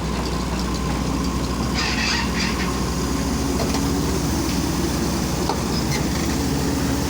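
Heavy excavator diesel engine running steadily with a low hum, with a few brief high-pitched chirps about two seconds in.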